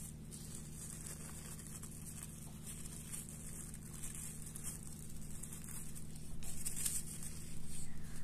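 Fingers rolling a thin triangle of potato dough on a wooden cutting board: soft rustles and light taps over a steady low hum, growing louder near the end.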